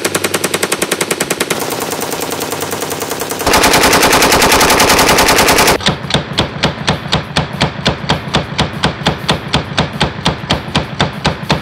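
RPD belt-fed light machine gun in 7.62×39 mm firing sustained automatic fire, a rapid even stream of shots. From about halfway through, the shots come more widely spaced and stand out one by one.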